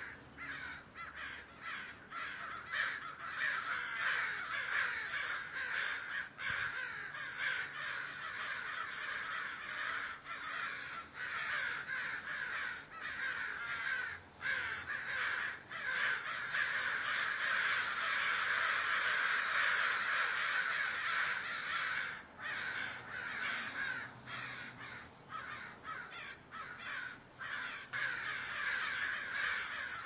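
Crows cawing, many calls overlapping into a dense, continuous chorus with only brief lulls. It is loudest about two-thirds of the way through.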